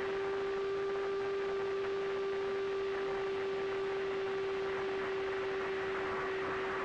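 Brushless motor and propeller of an AtomRC Dolphin FPV flying wing running at constant throttle under return-to-home autopilot: a steady whine holding one pitch, over wind rush on the onboard camera.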